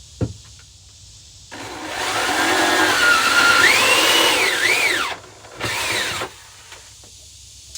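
Power drill cutting a hole through the side of a plastic bucket. It runs for about three and a half seconds with its whine rising and falling in pitch, then gives one short second burst.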